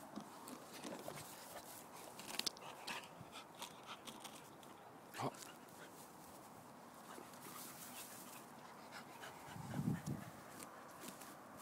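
Dogs sniffing and moving about in long grass, with scattered small knocks and rustles and a short low thump near the end.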